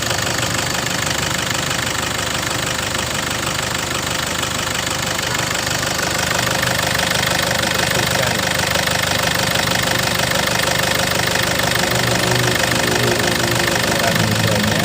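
Diesel car engine idling steadily while being purged with carbon cleaner, getting slightly louder about halfway through.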